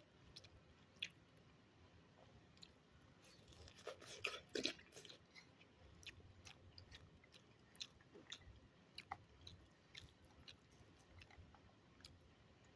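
Faint, close-up chewing of a homemade omelette, with soft, scattered mouth clicks and a louder cluster of chewing sounds about four seconds in.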